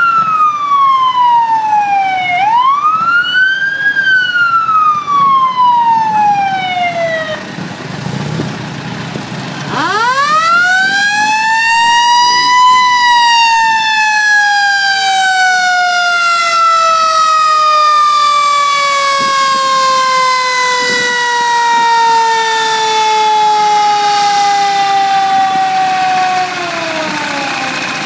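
Fire engine siren wailing loudly: it falls, rises and falls again and stops about seven seconds in. After a short lull it winds up quickly and then winds down slowly for more than ten seconds, dropping away near the end.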